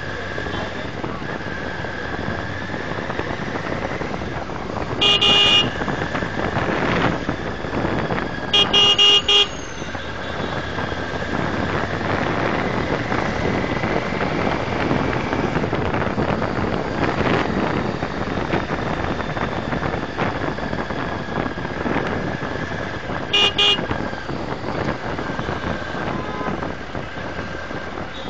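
Riding and traffic noise recorded by a motorcycle-mounted dash camera, with a vehicle horn honking three times: briefly about five seconds in, longer about eight and a half seconds in, and briefly again near the end.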